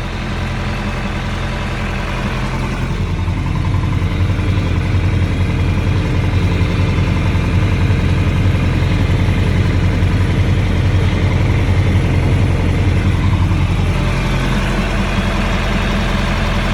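Tractor engine running steadily under load while towing a dead pickup on a tow rope; its low hum grows louder about three seconds in and eases off slightly near the end.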